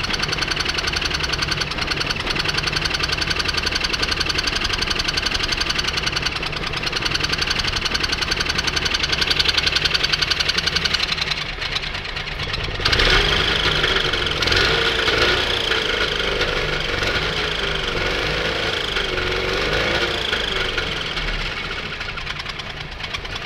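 Trabant's two-cylinder two-stroke engine running with a fast, even beat, carrying an odd chirping noise that started suddenly and points to something broken, cause unknown. About halfway through a wavering tone joins in for several seconds.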